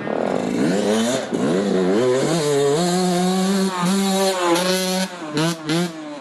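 Enduro dirt bike engine revving hard, its pitch rising and falling with the throttle and gear changes, then cutting in and out in two short throttle blips near the end.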